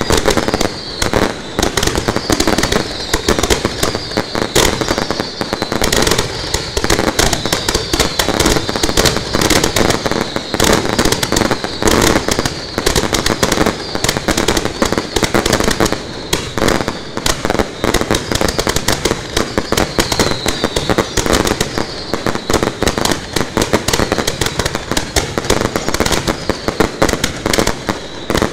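Fireworks fired at close range from ground launch racks in a continuous barrage: rapid, overlapping bangs and crackling with no let-up.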